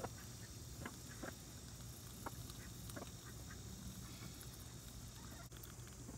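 Chickens feeding from a bowl: a few faint, short clucks and pecks, spaced out over a quiet background.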